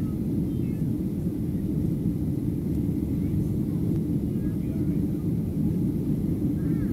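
Steady cabin rumble inside a Boeing 737-700 climbing out after takeoff: engine and airflow noise heard through the fuselage, even and unbroken.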